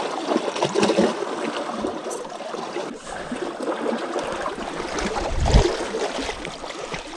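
Water splashing and trickling at the shoreline, uneven and crackly, with a heavier low splash or thump about five and a half seconds in.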